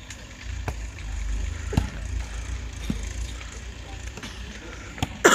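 Wind rumbling on the microphone, with a few sharp thumps of a volleyball being struck about a second apart, and a louder hit near the end.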